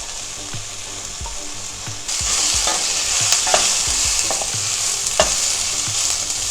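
Onion, ginger and garlic sizzling in oil in a hot skillet, with a utensil stirring and knocking against the pan. About two seconds in the sizzle suddenly gets louder, as chopped cabbage goes into the pan.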